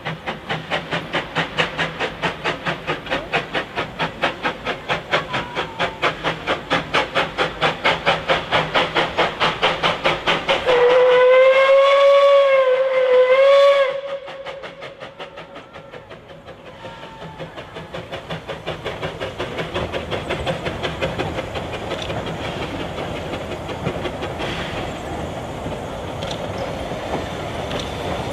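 Puffing Billy's NA-class 2-6-2 narrow-gauge tank locomotive 7A working steam, its exhaust beating rapidly and evenly. About eleven seconds in it sounds its steam whistle for about three seconds, the pitch wavering and dipping near the end. Afterwards the exhaust beats come back more softly and give way to the steadier running of the train and carriages as it draws near.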